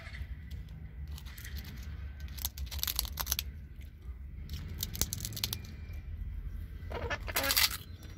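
Close-up crackling, rustling and clicking as a green parrot picks at a piece of bread held against the phone, over a steady low hum. A loud, harsh rasping burst comes about seven seconds in.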